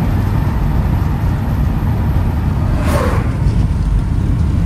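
Steady road and engine noise heard inside the cabin of a moving car, a deep rumble. About three seconds in, a brief rushing sound falls in pitch.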